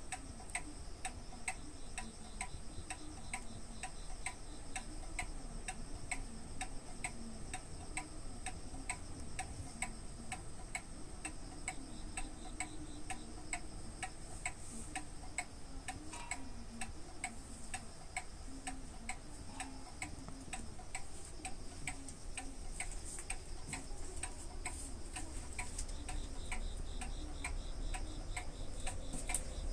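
Steady, even ticking at about two ticks a second.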